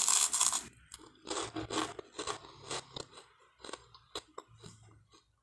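A bite into buttered toast made from a French bread roll: a loud crisp crunch at the start, then crunchy chewing that grows quieter and sparser.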